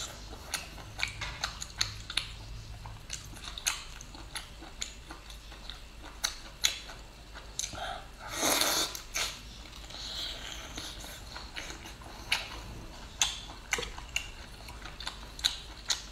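Close-up mouth sounds of eating shellfish: wet chewing, lip smacks and scattered short clicks. About eight seconds in comes a louder slurp, about a second long, as meat is sucked out of a sea snail shell.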